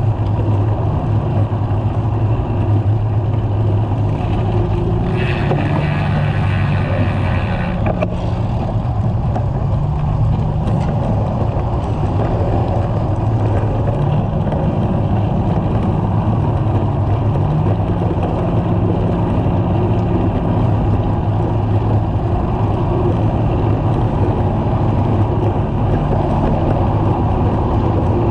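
Steady wind rumble and road noise on the microphone of a camera mounted on a moving road bicycle, with car traffic running close alongside. A brighter hiss rises for a few seconds about five seconds in.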